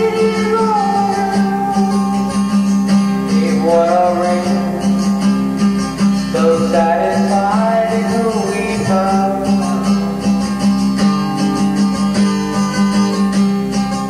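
1983 home cassette recording playing back from a tape deck: guitar music with a singing voice that comes in and out, over a steady low drone.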